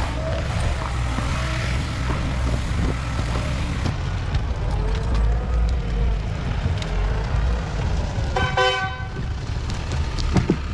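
Heavy vehicle engine running with a steady low rumble, and one short horn toot about eight and a half seconds in.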